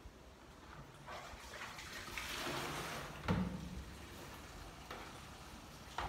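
Water running and splashing into a plastic basin in a kitchen sink, building over the first couple of seconds. A sharp knock of the plastic basin against the sink comes about three seconds in, with two lighter knocks near the end.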